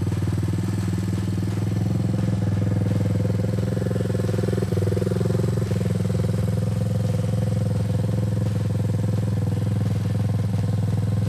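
1987 Honda ATC200X three-wheeler's air-cooled single-cylinder four-stroke engine idling steadily.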